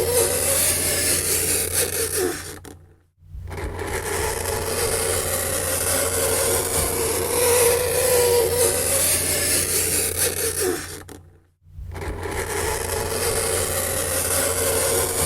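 Fingernails scraping across a chalkboard: a continuous rasping scrape with a wavering squeal over a steady low hum. It cuts out briefly twice, about eight seconds apart.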